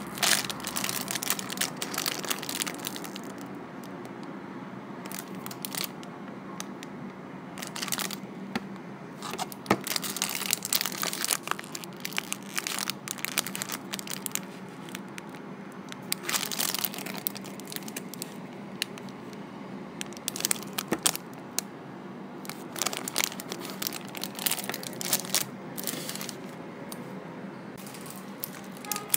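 Thin clear plastic packaging bag crinkling as hands handle a bagged plush toy, in irregular bursts of rustles and crackles.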